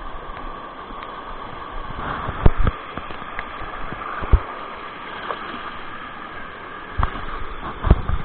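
Fast river water rushing and churning around a microphone held at and under the surface. A handful of sharp knocks cut through it, the loudest about two and a half and four seconds in.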